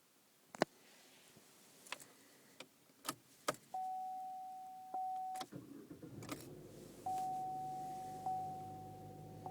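Chevrolet Cruze being started after its engine computer was reflashed with a new tune. A few sharp clicks and a dashboard chime dinging come first; about five and a half seconds in the engine cranks, catches and settles into a steady idle while the chime keeps dinging.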